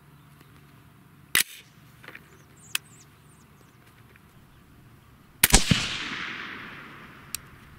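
Suppressed AR-15 (223 Wylde barrel, Liberty Infiniti X suppressor) firing handloaded .223 rounds: two sharp shots about four seconds apart, one about a second and a half in and one near the end. The second shot is the louder one and echoes away over about two seconds. Faint clicks fall between the shots.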